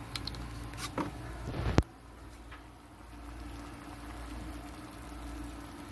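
Handling sounds at a gas stove: a few light clicks, then a sharp knock just under two seconds in, followed by a low steady hiss.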